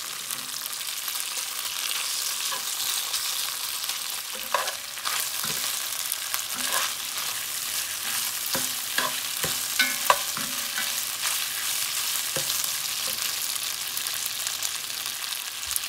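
Thin-sliced beef sizzling and searing in hot oil in a cast-iron pot, with a steady hiss. A spatula scrapes and clicks against the pan now and then as the meat is turned to brown the other side.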